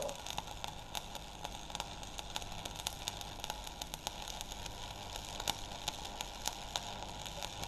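Electric arc welding on a steel frame: the arc crackles and sputters steadily, with many sharp pops over a constant hiss.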